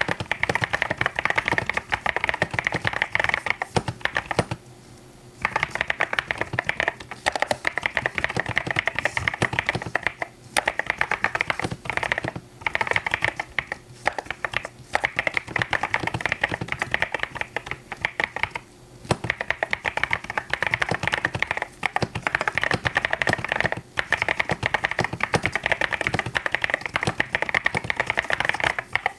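Mechanical keyboard being typed on quickly and continuously, a dense run of key clacks broken by a few brief pauses, the longest about five seconds in.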